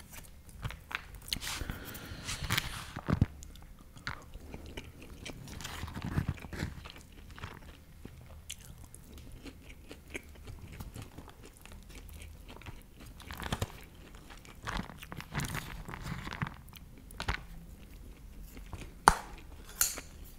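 Close-miked chewing and biting of a mouthful of food, with irregular clicks of a fork against a plastic takeaway container and one sharp click near the end.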